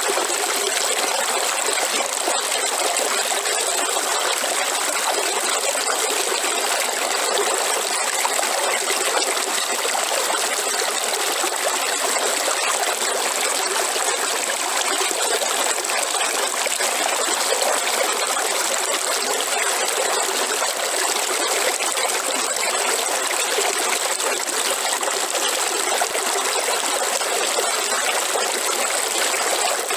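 A river's water flowing and trickling steadily, an even rushing sound with no breaks.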